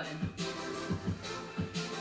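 Background music with a steady beat, about four beats a second under held notes.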